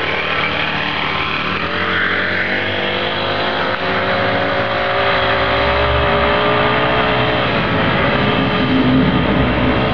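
Honda 33cc four-stroke bicycle engine running under way as the motorized bicycle is ridden off, its note shifting with the throttle and dropping about three-quarters of the way through.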